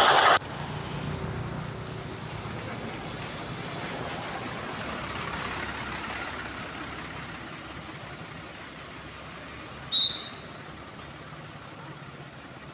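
Road noise of a bus going by, a steady rush that slowly fades. A loud hiss cuts off sharply in the first half-second, and a short, sharp high chirp sounds about ten seconds in.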